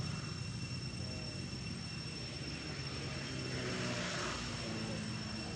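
A distant engine drone, low and steady, its pitch sliding down a little about three to four seconds in. A constant high-pitched whine runs over it.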